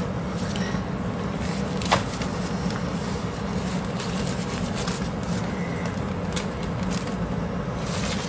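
Parchment paper and rolled puff pastry being handled and smoothed flat on a baking tray: light rustling and crinkling over a steady low hum, with one sharp click about two seconds in.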